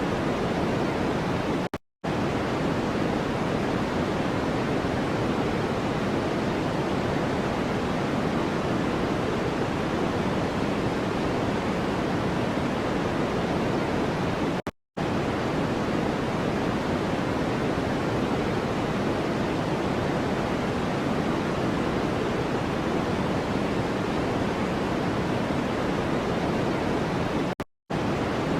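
Steady white-noise track, weighted toward the lower and middle range, with an even hiss at constant level. It cuts out to silence for a split second three times, about 13 seconds apart.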